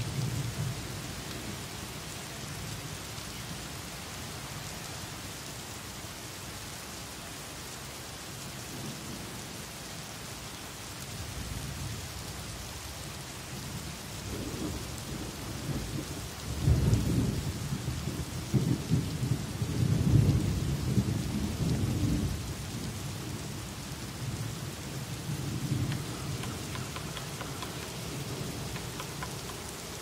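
Steady rain falling, with rolling thunder rumbling low; the thunder builds from about eleven seconds in, peaks twice in the middle and rolls once more, more faintly, near the end.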